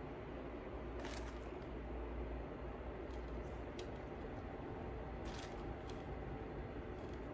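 Faint, scattered clicks of small seed beads and fishing line being handled and threaded, over a steady low hum and hiss.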